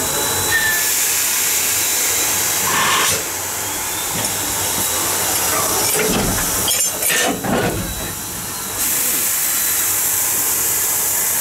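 Loud, steady hiss from the train that cuts off about three seconds in and starts again near nine seconds. A few sharp metallic knocks and clanks fall in the quieter gap.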